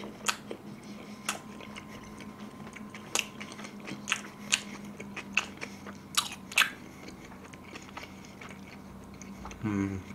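Close-miked chewing of a mouthful of pizza: wet mouth clicks and smacks at irregular intervals, about one every half second to a second. A brief low voiced murmur comes near the end.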